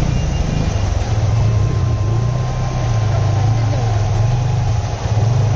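An engine running steadily with an even low hum, under a constant rushing noise.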